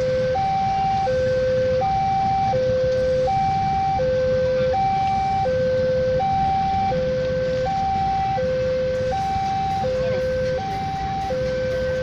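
Railway level-crossing warning alarm sounding a steady two-tone hi-lo signal, the higher and lower tones taking turns every three-quarters of a second without a break, over a low rumble.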